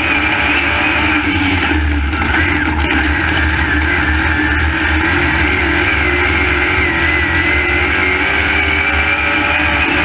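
Crate late model race car's V8 engine running hard at racing speed, heard from inside the cockpit; its pitch wavers slightly up and down.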